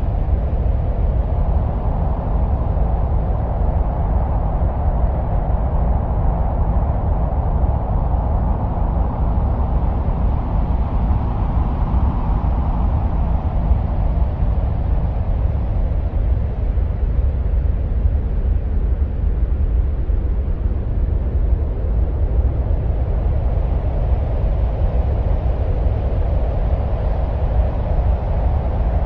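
Steady wind-like rumbling noise presented as the sound of Mars: a deep continuous rumble with a hiss in the middle that slowly swells and fades, stronger in the first half and again near the end.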